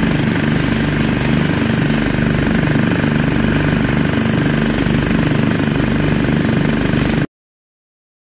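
Small gasoline engine on a floating gold dredge running steadily, driving the dredge's water pump; the sound cuts off suddenly about seven seconds in.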